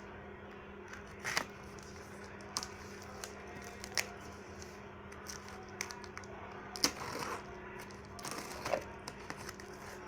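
Packaging being handled during an unboxing: scattered clicks, taps and short crinkles at irregular intervals, over a steady low hum.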